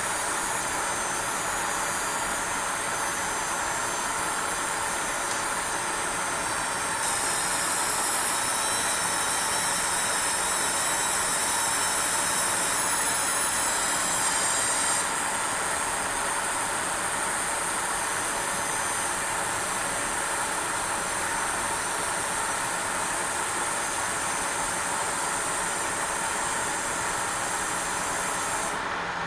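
Graphics card coil whine: a high-pitched electrical whine made of several steady tones over a steady hiss. About seven seconds in the whine turns louder and brighter, settles back about eight seconds later, and its highest tones cut off just before the end.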